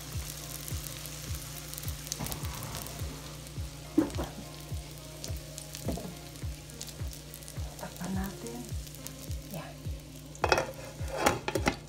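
Omelette mixture frying in a non-stick pan, a steady sizzle. Near the end a glass pan lid is set on with a few sharp clinks.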